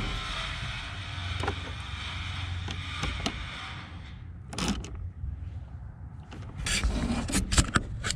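A steady hiss over a low hum that dies away about four seconds in, then a series of sharp metallic clanks and knocks as tools and parts are handled.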